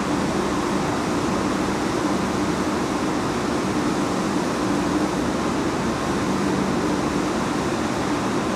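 Steady distant rushing roar of a Boeing 777-300ER's jet engines at taxi power, with a low steady hum underneath.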